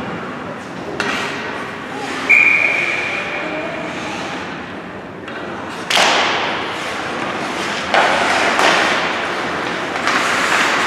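Hockey game play in a large echoing rink: sharp knocks and thuds of sticks, puck and boards, each trailing off into the hall's echo. One hit about two seconds in leaves a clear ringing tone that fades over a second or so.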